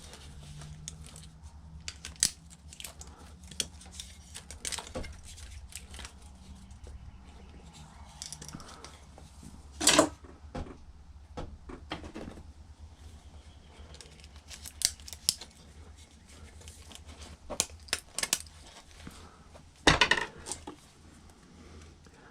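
Irregular clicks and clinks of tools and small metal parts being handled while a karaoke machine is taken apart, with two louder knocks about ten and twenty seconds in. A steady low hum runs underneath.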